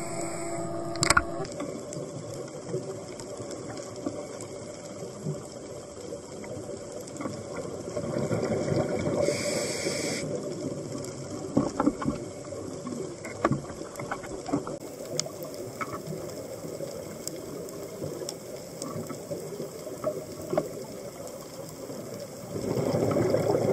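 Underwater sound of a scuba dive: bubbling and gurgling from a diver's exhaled breath, with scattered clicks and crackles. The bubbling swells about eight seconds in and again near the end.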